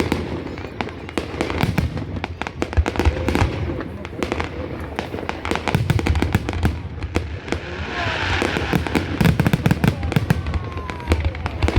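Fireworks going off in a dense run of sharp bangs and crackles, one after another with hardly a break. A hissing crackle swells about eight seconds in.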